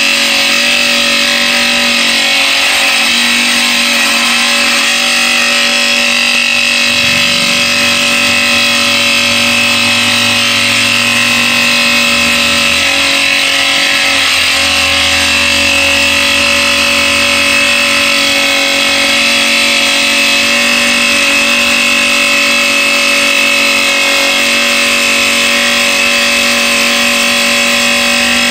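Raimondi Jollyna tile saw running steadily under power, its electric motor and blade giving a constant whine while cutting a 46° bevel along a ceramic tile. A lower hum swells for a while in the middle of the cut.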